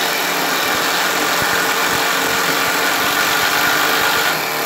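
Two 12-volt cordless impact drivers, a brushed Makita DT03 and a brushless DeWalt Xtreme, hammering together as they drive 3-inch deck screws into wood. They make a loud, dense, rapid rattle of impacts that stops abruptly near the end.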